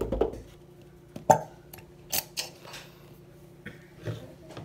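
A handful of sharp clicks and knocks from glue bottles, caps and a stirring utensil being handled over a tabletop, the loudest a little over a second in, over a faint steady hum.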